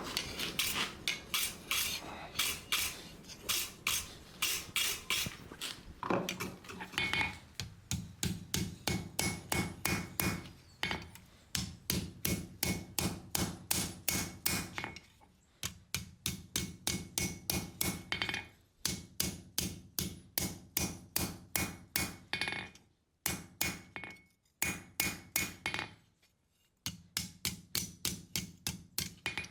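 Blacksmith's hammer striking hot 5160 spring steel on an anvil in a steady rhythm, about three blows a second, each blow with a bright metallic ring. The run of blows breaks off several times for a moment in the second half.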